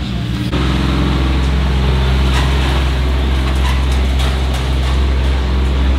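BMW M3 CS's twin-turbo straight-six idling steadily, a deep, even exhaust note that comes in louder about half a second in.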